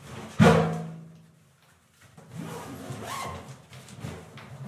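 A sharp knock about half a second in, ringing briefly in a bare concrete room, then rustling and zip sounds as a black holdall is opened and rummaged through.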